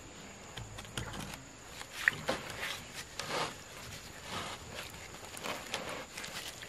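Plastic water pipe being handled and pushed into a coupling sleeve in wet mud: scattered knocks, scrapes and squelches, with one sharp knock about two seconds in.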